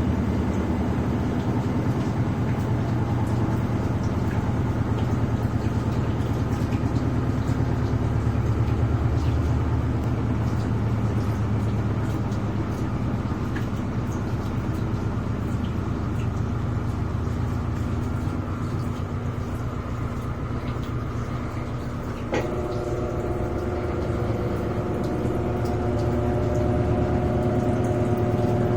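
Electrolux LTD13 washing machine in its spin cycle, the motor and drum running with a steady low hum. About three-quarters of the way through there is a click, and a steadier, higher hum joins in.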